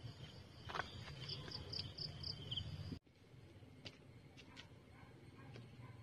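Insects chirping at dusk in a steady high chorus, with a run of short louder chirps about four a second and a couple of handling clicks. About halfway through, the sound cuts off abruptly to a quieter background with a few faint ticks.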